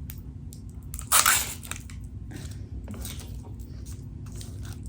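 McDonald's dipping-sauce cup being opened by hand: small plastic clicks and crackles, with one louder, brief crackling rip about a second in as the foil lid is peeled back.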